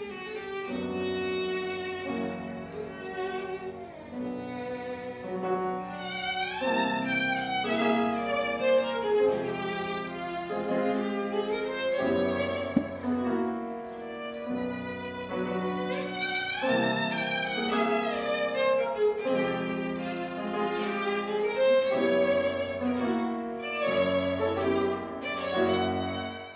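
Violin playing quick runs with slides between notes over grand piano accompaniment; a single sharp click about halfway through.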